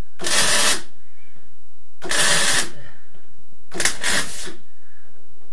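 Arc welder laying short tack welds on a steel car sill panel: three bursts of about half a second each, the last one broken into two quick pulses.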